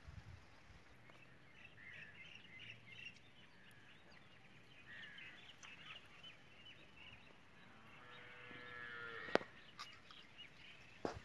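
Faint rural background of small birds chirping, with one longer, steady-pitched call about eight seconds in, followed by a sharp click and another click near the end.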